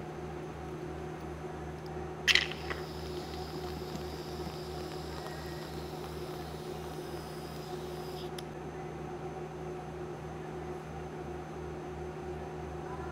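Whipped cream dispenser spraying cream into a glass: a sharp spurt about two seconds in, then a hissing stream for about six seconds that cuts off suddenly. A steady low hum runs underneath.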